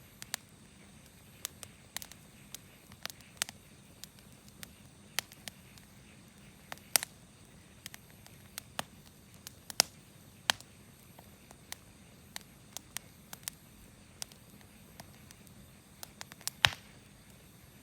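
Wood campfire crackling: irregular sharp pops and snaps over a faint steady hiss, with the loudest snap near the end.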